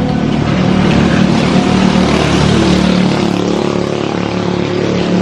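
A motor vehicle's engine running close by, a steady droning hum that grows a little louder about a second in.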